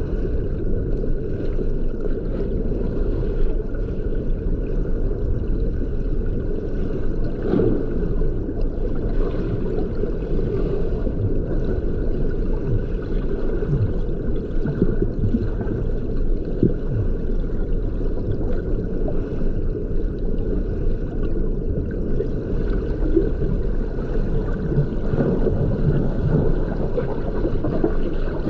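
Muffled, steady water noise with scattered gurgles, as heard by a camera under water.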